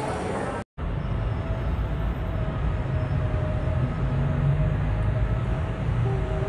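Steady low rumble of city street traffic, with a faint drawn-out hum above it. It follows a brief break in the sound under a second in.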